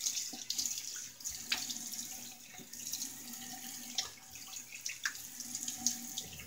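Water from a tap running into a bathroom sink, with a few sharp clicks and splashes scattered through it.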